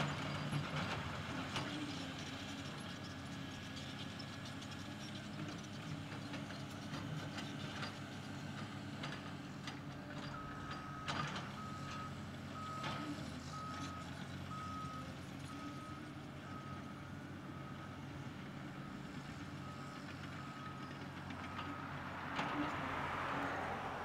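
Diesel engines of a Cat 330D L excavator and a Cat bulldozer running steadily while the excavator digs, with a few sharp metallic knocks. From about halfway through, a backup alarm beeps at a steady pace, a little over once a second, stopping near the end.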